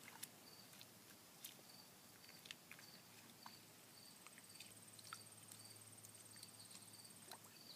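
Quiet insect calls: short high chirps repeat throughout, and a thin high trill joins about four seconds in and stops near the end. Faint small clicks and splashes come from hands rubbing sumac berry heads in a bowl of water.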